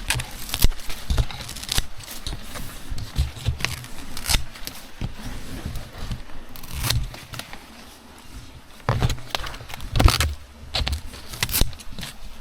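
Heavy-duty titanium-coated scissors cutting up plant fronds, making a run of irregular snips, with the loudest cuts near the end.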